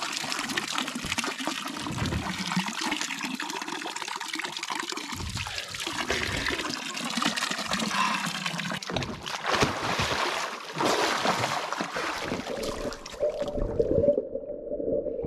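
Water splashing and trickling close to the microphone. About 13 seconds in, the camera goes under water and the sound turns dull and muffled.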